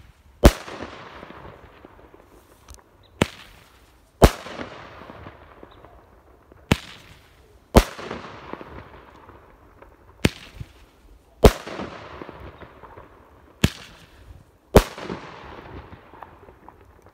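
Five-shot salute candle firing: five loud salute bangs about three and a half seconds apart, each trailing off in a long echo. The last four are each preceded, about a second earlier, by the pop of the shell launching from the tube.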